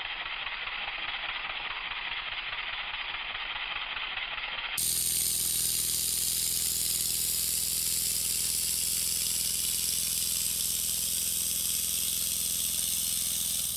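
Stuart 10V single-cylinder model steam engine running fast: a steady hiss with a rapid, even beat from its exhaust. About five seconds in the sound jumps to a louder, brighter hiss with a steadier hum to the beat.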